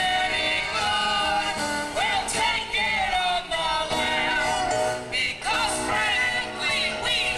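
Live singing by a man and women into a microphone over instrumental accompaniment, a show tune from a street-theater musical.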